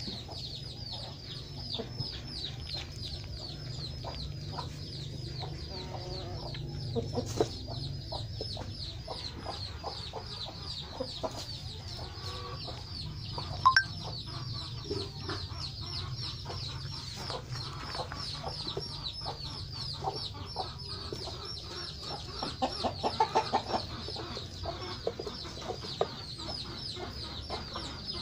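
Chickens peeping: an unbroken run of high notes, each sliding downward, several times a second, over a low steady hum. A few louder short sounds come about halfway through and again after twenty seconds.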